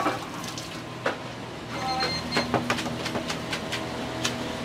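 Restaurant kitchen clatter: irregular clinks and knocks of ladles, pans and bowls over a steady hum of kitchen equipment, with a short electronic beep about two seconds in.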